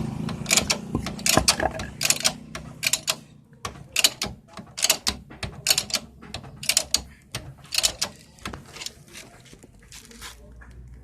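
Irregular run of sharp metallic clicks and knocks from hand tools on metal, about two or three a second, thinning out after about eight seconds.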